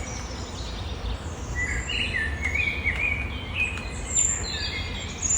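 Songbirds singing quick phrases of stepped high notes over a steady low rumble, with a few faint sharp taps of a woodpecker pecking at wood.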